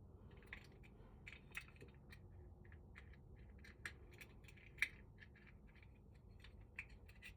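Faint, irregular clicks and light metal taps from small lock parts being handled and tried in place while a lever handle's cylinder and detent piece are fitted back together.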